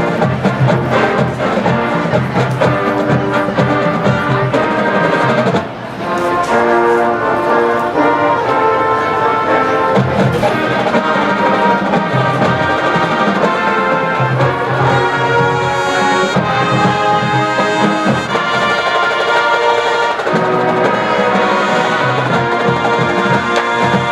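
Brass ensemble music: trumpets and trombones playing loud sustained chords that change every second or so, with a short break about six seconds in.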